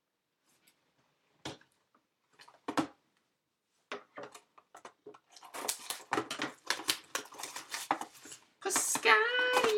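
Trading card packs and cards being handled: a few scattered clicks, then from about four seconds in a stretch of rapid rustling, crinkling and clicking as a pack is opened and cards are moved. A voice hums or sings briefly near the end.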